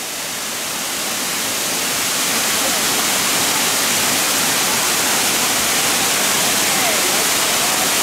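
Kintampo Falls, a large tiered waterfall, rushing steadily; the sound of the falling water grows louder over the first two or three seconds, then holds steady.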